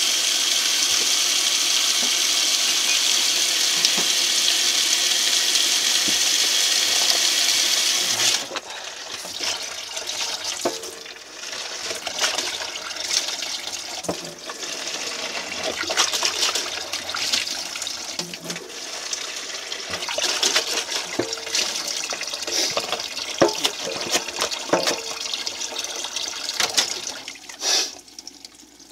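Kitchen tap running hard into a stainless-steel sink for about eight seconds, then water splashing unevenly with occasional knocks as a paper milk carton is rinsed under it. The water stops near the end.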